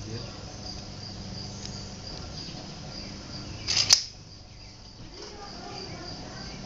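Crickets chirping in a steady, high, even drone. About two thirds of the way through, a quick clatter of sharp metallic clicks as the Gamo break-barrel air rifle's barrel is broken open to cock it.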